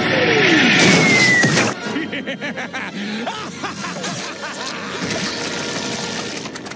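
Cartoon explosion rumble from a mushroom-cloud blast, with falling whistling tones through it, cutting off sharply just under two seconds in. Quieter cartoon sound effects over background music follow.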